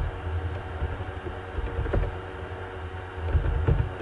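A few faint clicks of typing on a computer keyboard over a steady low electrical hum of background noise.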